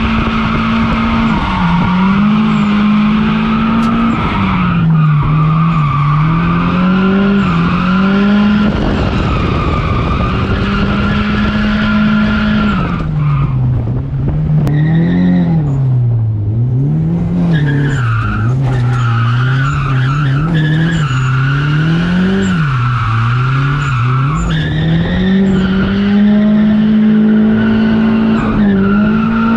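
Nissan 240SX's turbocharged SR20DET engine heard from inside the cabin while drifting on track. The engine runs at high revs, held steady for a few seconds near the start, around a third of the way in and near the end, and rising and falling about once a second through the middle. Tyres skid under it.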